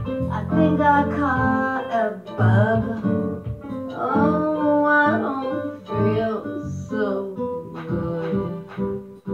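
A song: a voice singing over guitar accompaniment.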